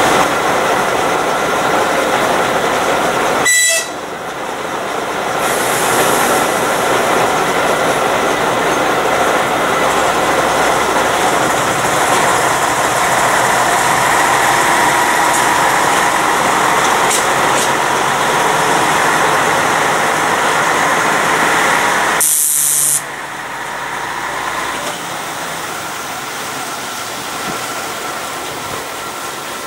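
TU4 narrow-gauge diesel locomotive running under load as it hauls its carriages away along the track, the wagons rolling behind it. The sound drops suddenly in level about three-quarters of the way through.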